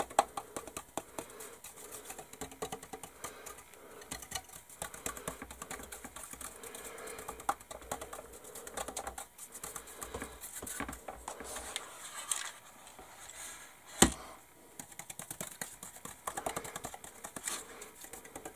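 Soft anti-static brush swept over a primed plastic model aircraft: a steady patter of light, scratchy ticks from the bristles and plastic, with one sharp tap about fourteen seconds in.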